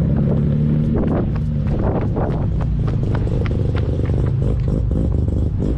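Mazda RX-7 rotary engine running at idle and low revs with its choppy 'brap' sound, with many sharp clicks over it. Its steady pitch drops slightly after about a second and a half.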